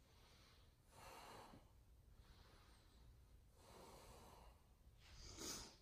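Faint breathing of a man holding a forearm plank: about four slow, soft breaths, the last one, near the end, louder.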